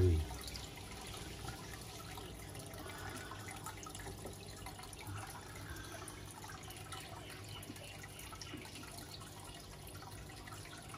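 Aquarium filter return water trickling and dripping into the tank, steady and fairly faint.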